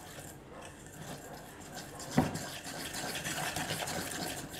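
A utensil stirring thick cake batter in a stainless steel mixing bowl: rapid, rhythmic scraping and slapping against the metal that gets busier toward the end, with one sharp knock on the bowl about two seconds in.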